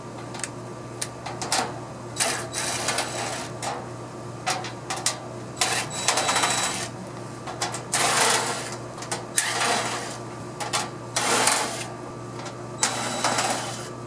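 Cordless drill backing screws out of the sheet-metal top cover of an air-conditioner condensing unit: several short runs of the motor, each under a second, with clicks and taps between them.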